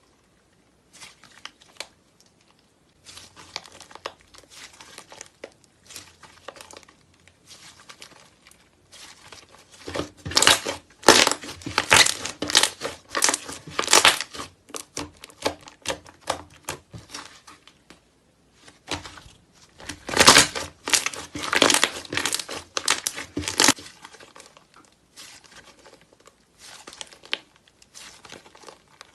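Slime being squeezed and worked by hand, making dense crackling, crinkly clicks and pops, loudest in two stretches about ten and twenty seconds in.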